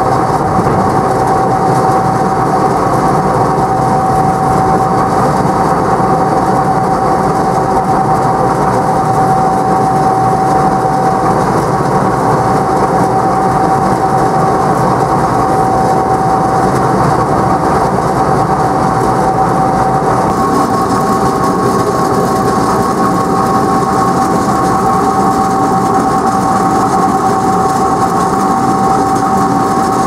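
Wakely 1240 Mobile crimper and roller mill running steadily while crimping maize: a loud, constant mechanical drone with a steady whine, and a second, higher whine joins about two-thirds of the way through.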